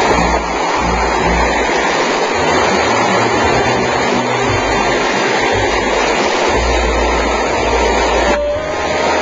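Creek water rushing over rocks and small cascades, a steady loud wash of noise, with an uneven low rumble underneath.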